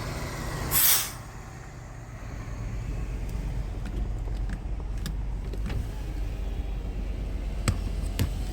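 Fire truck engine running with a steady low rumble, with a short, loud hiss about a second in and a few faint clicks later on.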